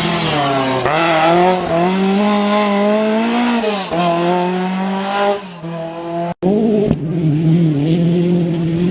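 Rally car engine at high revs, its pitch climbing and holding, then dropping sharply at gear changes or lifts off the throttle. The sound cuts out for an instant about six seconds in, and an engine continues after the break with a wavering pitch.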